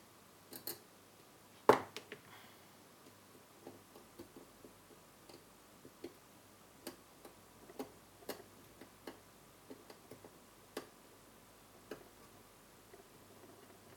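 Irregular small clicks and taps of tweezers and small parts being handled against a car stereo's chassis during reassembly, with one louder knock about two seconds in.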